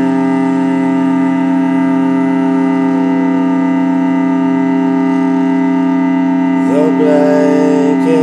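Electronic keyboard holding a sustained chord as a steady drone. About six and a half seconds in, a higher tone slides up and holds over it.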